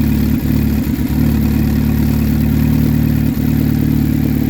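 2007 Saturn Ion's four-cylinder engine idling steadily, with a few brief stumbles. This is the sign of an intermittent misfire, which is traced to cylinder 4.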